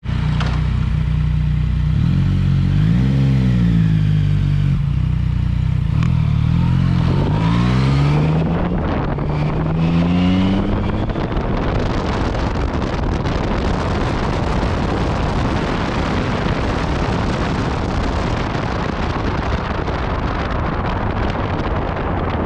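Yamaha MT-09 Tracer's three-cylinder engine through an Akrapovic exhaust, accelerating hard with its pitch rising and dropping back at each gear change. From about eleven seconds in, wind rushing over the microphone at speed drowns the engine.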